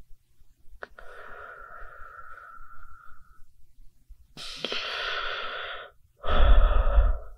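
Human breathing, three long breath sounds one after another, the last the loudest with a low rumble under it.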